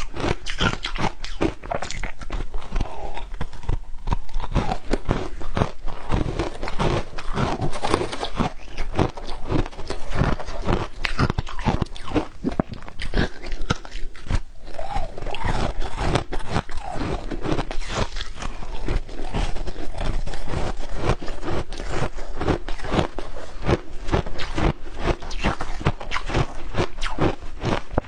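Close-up crunching and chewing of packed crushed ice dusted with matcha powder, bitten off in chunks: a dense, irregular run of crisp crunches with no letup.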